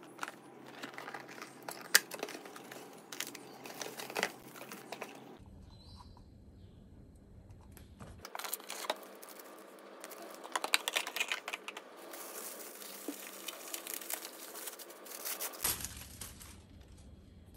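Cardboard box being opened and handled, with rustling and sharp taps for about five seconds. After a short lull comes a longer spell of paper wrapping crinkling as it is pulled off a moka pot.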